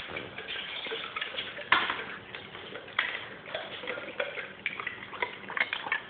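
Great Dane making irregular sharp clicks and crunches at a tile floor, a few a second and coming faster near the end.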